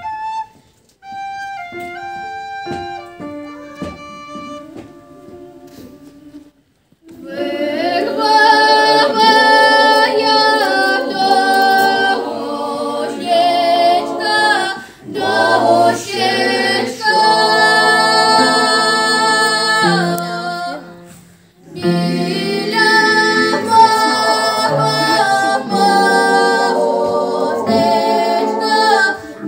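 A short solo melody played on an instrument, then a mixed choir of men and women singing loudly in harmony from about seven seconds in, with a brief break about two-thirds of the way through before the voices come back in.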